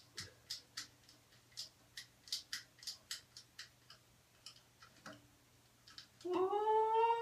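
A blade sawing back and forth through the rubber refill tube of a toilet fill valve, in short sharp strokes about three a second that stop about four seconds in. Near the end a held, slightly rising pitched tone sounds for under two seconds, louder than the cutting.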